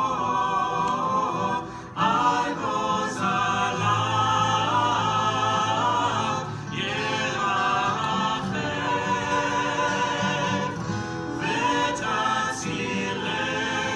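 A group of cantors singing together in harmony. The phrases break off briefly about two seconds in and again near seven seconds.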